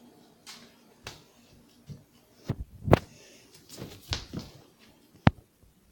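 A series of irregular thumps and knocks, the loudest about three seconds in, with a sharp click near the end.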